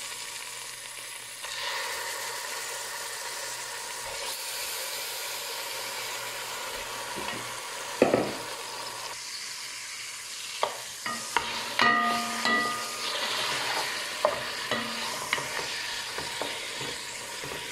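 Raw bone-in meat chunks sizzling in hot oil in a metal pot, a steady frying hiss. A sharp knock comes about eight seconds in, and later a wooden spoon stirs the meat, scraping and clicking against the pot.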